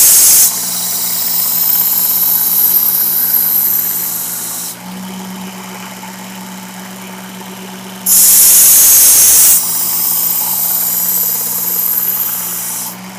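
Work Sharp knife sharpener with the Blade Grinding Attachment running with a steady motor hum while a steel machete blade is ground on its coarse abrasive belt. There are two loud, harsh grinding passes, one at the very start and one about eight seconds in, each followed by a few seconds of lighter grinding. In between, from about five to eight seconds, the motor runs alone.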